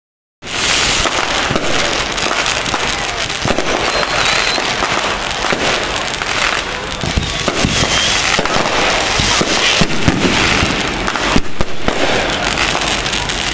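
Many fireworks going off together: dense, unbroken crackling and popping of aerial bursts, starting abruptly just under half a second in.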